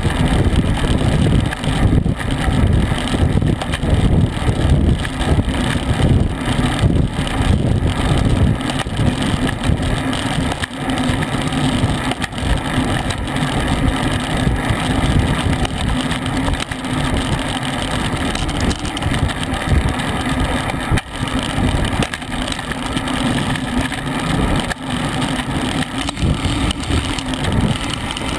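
Wind rushing over the microphone of a camera on a road bicycle moving at about 20 mph, a steady noise with a low rumble that buffets and comes and goes, over road and tyre noise.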